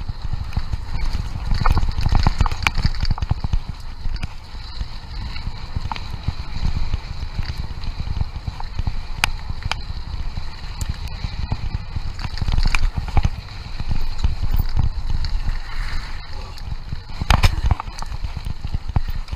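Mountain bike running fast down a gravel trail: wind buffets the microphone with an uneven low rumble over the hiss of tyres on gravel, broken by frequent sharp clicks and rattles from the bike over bumps.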